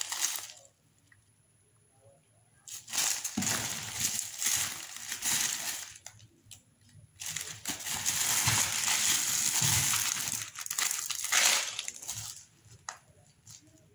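Plastic packaging, zip-lock bags and a poly mailer, crinkling and rustling as it is handled. It comes in two long stretches, with a short pause between them.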